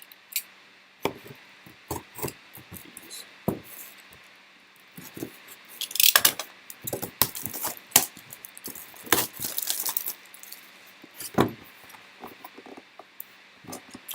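A signed mini-helmet box and its packaging being handled and opened: a string of light clicks and knocks, with bursts of rustling about six seconds in and again about nine to ten seconds in.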